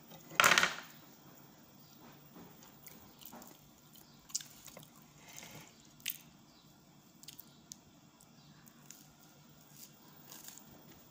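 A person chewing soft banana cake eaten by hand, with soft wet mouth sounds and scattered small clicks. A short loud noise comes about half a second in.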